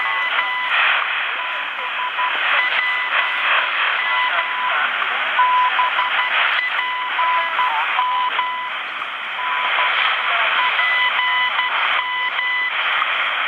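Shortwave time-signal broadcast on 15.000 MHz heard through a HanRongDa HDR-747 receiver's speaker: steady static hiss with a high steady tone that keeps breaking in and out as the signal fades.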